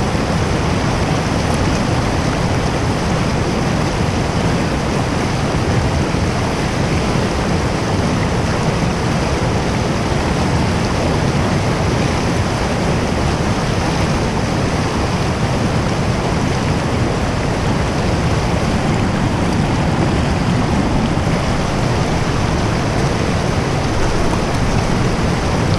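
Fast-flowing creek water rushing over rocks: a loud, steady wash of noise.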